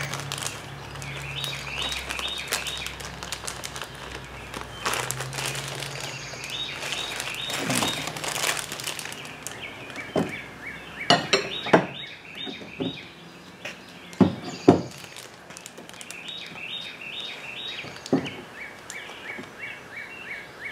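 Plastic parts bags crinkling and metal brackets and small hardware clinking as an air-spring kit is unpacked, with a few sharper knocks. A small bird chirps in short repeated phrases throughout.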